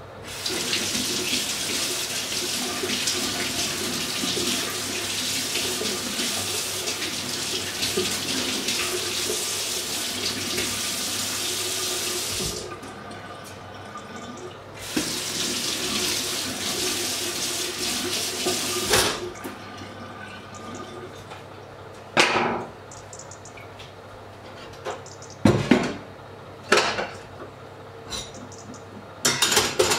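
Kitchen tap running into a sink, a steady rush for about twelve seconds, then again for about four seconds after a short pause. Then a few short clinks and knocks of dishes or pots.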